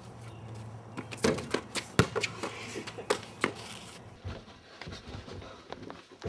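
Two people scuffling on a driveway: a quick run of sharp scuffs and knocks, the loudest about two seconds in, dying down after about three and a half seconds.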